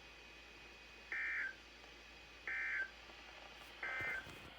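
Emergency Alert System end-of-message (EOM) code: three short, identical electronic data bursts a little over a second apart, sent to close the special marine warning broadcast.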